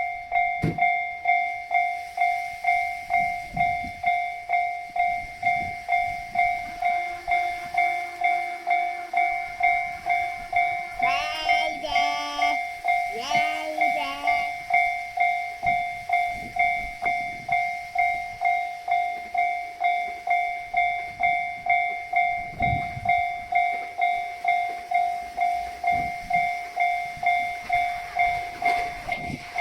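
Japanese level-crossing warning bell ringing steadily at about two strokes a second. About a third of the way through, an approaching train gives two short horn blasts.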